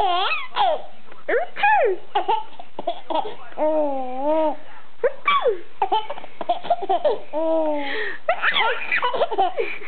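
A baby laughing again and again in high, gliding squeals and giggles, one long wavering laugh near the middle, set off by an adult's fake sneezes that come in short bursts between the laughs.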